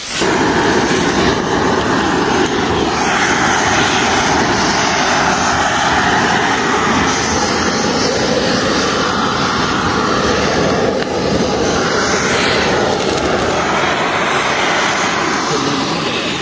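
Handheld propane blowtorches roaring steadily as their flames singe the quills and hair off a porcupine carcass.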